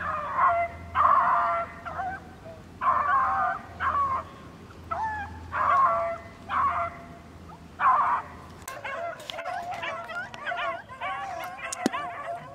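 Pack of beagles baying on a rabbit's scent: separate drawn-out bawls at first, then from about nine seconds in several dogs giving tongue together in a continuous chorus.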